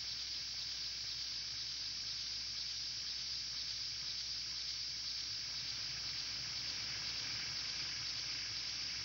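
A steady, even hiss of static-like noise, strongest in the high register, with no tones or beats in it.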